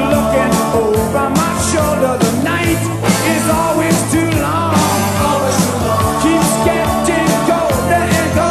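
Rock band music with a steady drum beat and electric guitar, an instrumental passage of the song.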